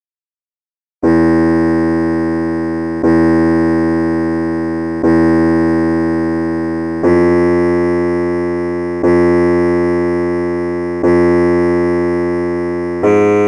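Keyboard guide tones playing the Mayamalavagowla scale for a singing exercise. After about a second of silence come three notes on Sa, then three a half step higher on Re, then Ga near the end. Each note is struck about every two seconds and left to fade.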